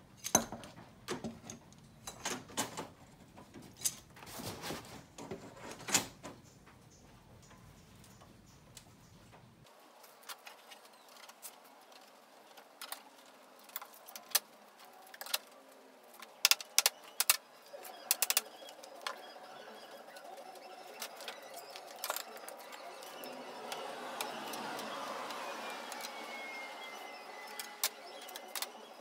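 Metal bar clamps and F-clamps clicking, rattling and knocking as they are handled, fitted and tightened onto a wooden strip along a metal table edge. The sharp clicks come irregularly throughout, with a quick run of loud ones a little past the middle.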